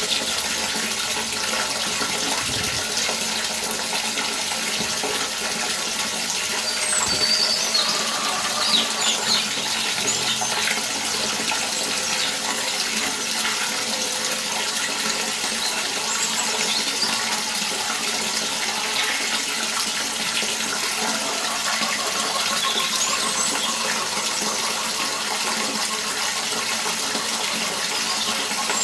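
Water running and splashing steadily, with a few short high squeaks now and then.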